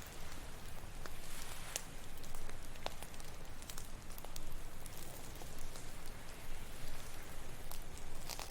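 Campfire crackling with frequent sharp pops and snaps of burning wood, over a steady low wash of ocean waves.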